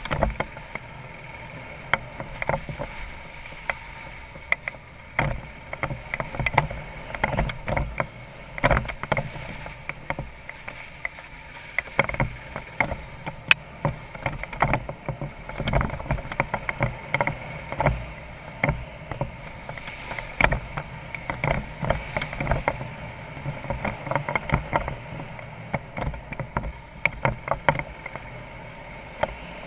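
BMW F650GS Dakar's single-cylinder engine running steadily at low speed on a rough gravel track, with frequent irregular knocks and rattles as the bike jolts over stones and potholes.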